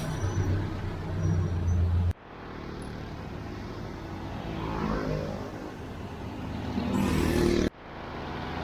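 Road traffic: motor vehicle engines running and passing close by. The sound cuts off abruptly about two seconds in and again near the end.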